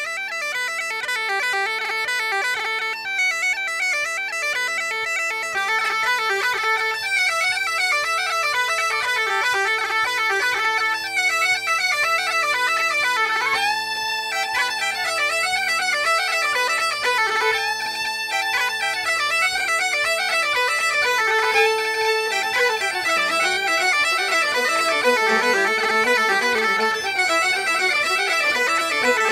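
Background music: a bagpipe tune played over steady drones, with a steady low beat coming in about five seconds in.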